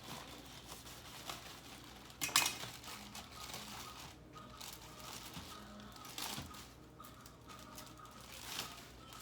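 Kitchen handling sounds: dishes and utensils clinking and rustling at the sink while vegetables are washed, with one sharper clatter about two seconds in.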